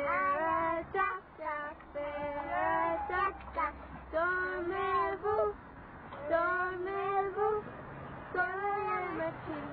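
A young girl singing in a high voice, in short phrases of about a second with brief pauses between them.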